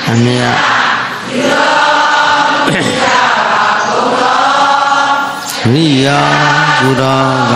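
Buddhist congregation chanting together in unison, in long held notes with short breaks between phrases.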